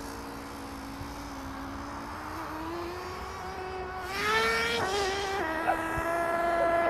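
Thunder Tiger ST1 radio-controlled truck's small motor running at a steady buzzing pitch, then revving higher and louder about four seconds in, with a short knock a couple of seconds later.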